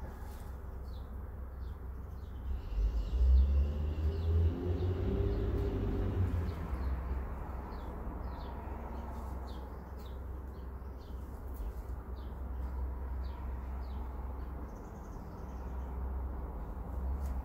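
Background ambience: a low rumble that swells and dies away over a few seconds near the start, with faint short high chirps repeating about once or twice a second throughout.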